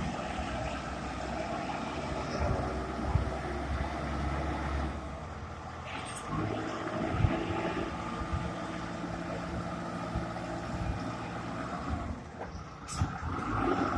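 Self-loading concrete mixer's 4.3-litre four-cylinder diesel engine running under load as the machine climbs a slope; its note changes about halfway, and there is a sharp click near the end.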